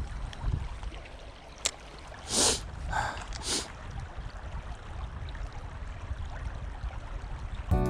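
Creek water running under a low rumble of wind on the microphone, with a sharp click and three short rustling noises around the middle. Music starts just at the end.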